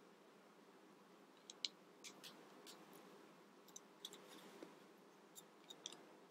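Faint, scattered clicks and taps of plastic Mega Bloks building pieces being handled and pressed together, beginning about a second and a half in.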